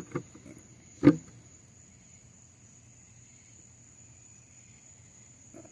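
Faint, steady high-pitched trilling of insects, with a short knock at the very start and a louder one about a second in.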